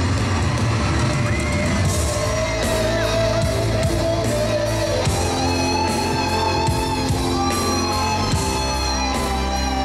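Live electric guitar solo over the full band: long held lead notes that bend and slide, with drums keeping time behind.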